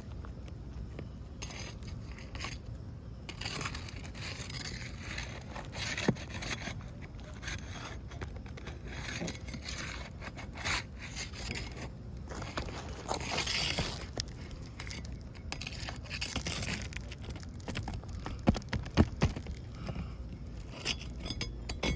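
Asphalt roof shingles being pried up and scraped as their nails are worked loose, with irregular scraping and a few sharp clicks, several of them near the end.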